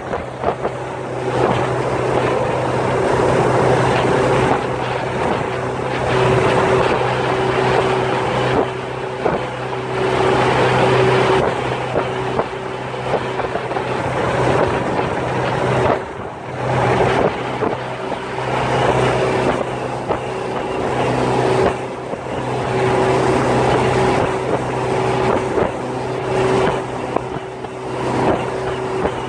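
Motorboat engine running steadily underway, a constant low hum, with wind buffeting the microphone in gusts.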